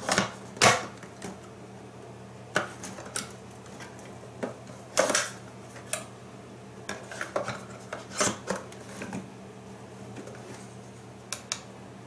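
Irregular clicks and clatters of hard plastic and metal, a hard drive being handled and pushed into a SATA docking station. Underneath is a steady low hum.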